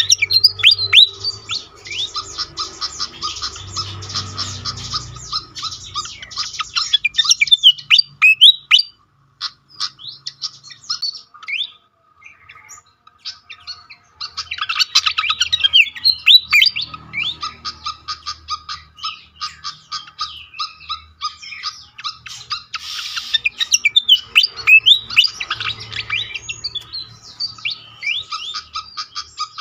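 Malaysian pied fantail (sikatan kipas) giving rapid, squeaky chattering calls in long bursts, with a near pause about ten seconds in.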